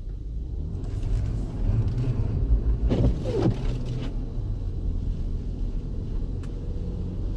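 Jeep Grand Cherokee driving on a snowy road: a steady low rumble of engine and tyres, swelling louder for a few seconds about a second in, with a brief wavering noise around the three-second mark.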